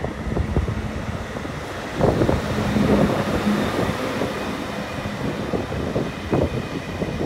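ÖBB Class 1116 Taurus electric locomotive arriving slowly at the head of a Railjet, its wheels clattering with irregular knocks over the track. It gets louder about two seconds in as the locomotive passes, with a low steady hum for a few seconds, then the coaches roll by.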